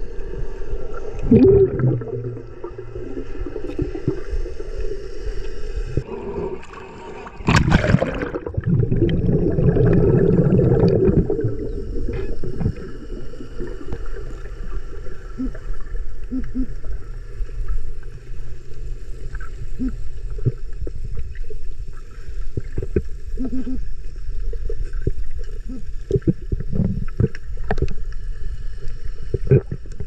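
Muffled underwater noise of water moving around a submerged camera: a low rumble, a loud rushing surge about eight seconds in, then scattered small knocks and clicks.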